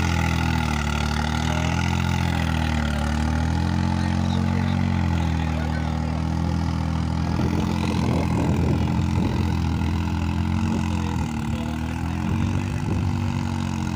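New Holland 3600-2 tractor's diesel engine running steadily under load as it pulls a seven-tine cultivator through dry soil, its pitch wavering slightly. Irregular low rumbling buffets join in from about halfway through.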